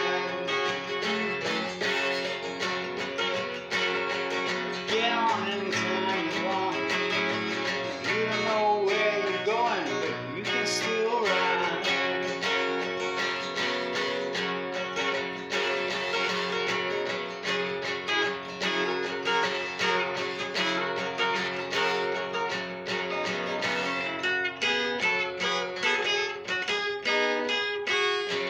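Acoustic guitar with a capo playing a country blues train tune, notes picked in a steady, driving rhythm.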